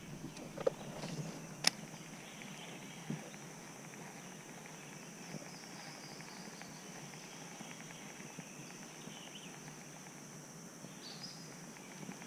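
Steady high-pitched insect chorus, with a few sharp clicks and knocks in the first three seconds.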